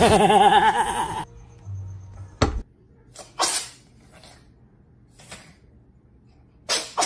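A loud pitched voice for about the first second, then a cat's fit of short coughs: a sudden sharp snap, then four or five brief noisy puffs over about three seconds. The coughing is a sign of the cat's chronic coughing and sneezing fits.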